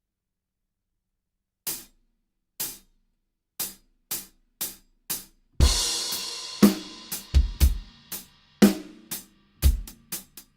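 Drum kit with Centent XTT cymbals: six light, evenly spaced taps count in, then about halfway through a crash cymbal hit together with the bass drum opens a groove of kick and snare strokes under the ringing cymbal wash.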